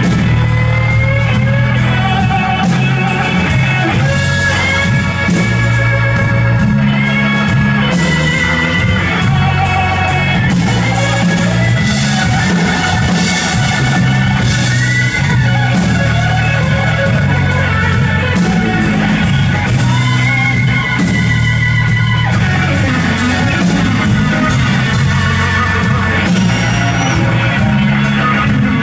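Live blues band playing a slow blues: electric guitar lead with bent notes over drums, bass guitar and organ, no vocals.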